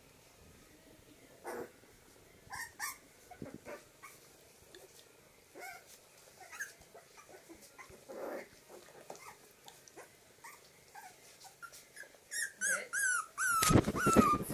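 Four-week-old mini labradoodle puppies squeaking and whimpering in short, scattered calls as they tumble about at play. A quick series of loud, high yelps comes in the last two seconds.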